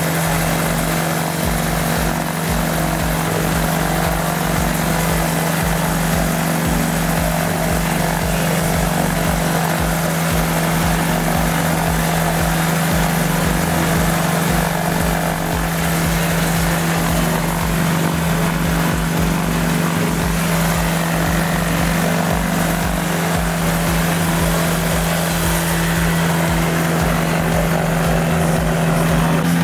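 Motorized hang glider trike's engine and pusher propeller running steadily at low power, an even drone that holds the same pitch throughout.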